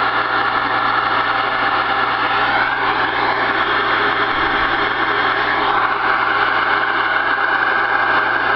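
Cobra 148 CB radio receiving on the 11-metre band: a loud, steady rush of static and garbled band noise through its speaker, with several faint steady whistling tones underneath, typical of crowded skip conditions.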